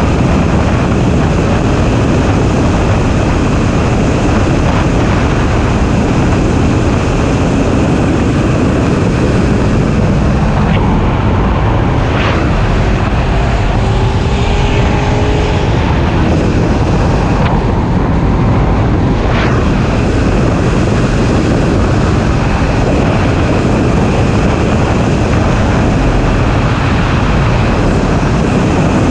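BMW E30's M20 straight-six engine running at speed on track, with steady wind rushing over the hood-mounted camera.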